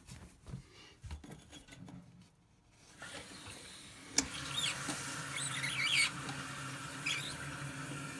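Kohler toilet's water supply turned back on at the shut-off valve: about three seconds in, water starts running through the supply line and fill valve into the tank with a steady hum and hiss. There is a sharp click just after, and high squeaky chirps come in the middle.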